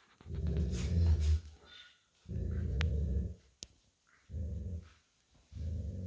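Golden retriever growling low in four rumbling bouts, a play growl during a tug-of-war over a plush toy. A couple of sharp clicks fall between the second and third growls.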